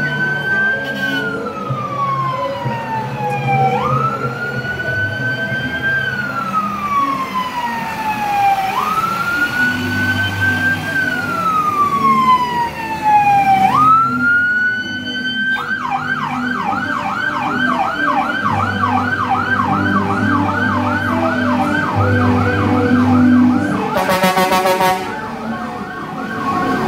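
Ambulance siren sounding: slow rising-and-falling wails, about one every five seconds, then switching about 15 seconds in to a fast repeating yelp, with a short harsh horn blast near the end. Vehicle engines rumble underneath.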